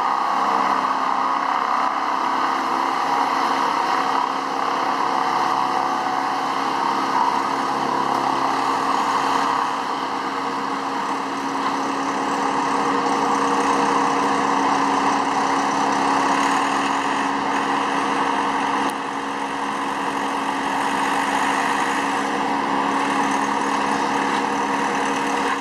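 Engine of a boom-mounted tree-trimming machine running steadily while it works storm-downed trees, giving an even mechanical drone.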